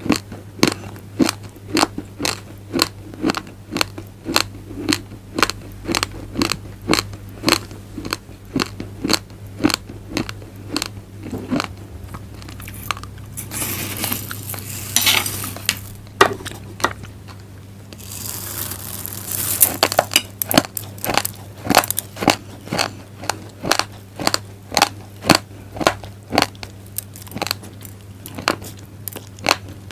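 Raw glutinous rice grains crunched between the teeth in close-up, sharp crunches about two to three a second. Twice, about halfway through, the crunching gives way to a denser rustling hiss lasting about two seconds, and a low steady hum lies underneath.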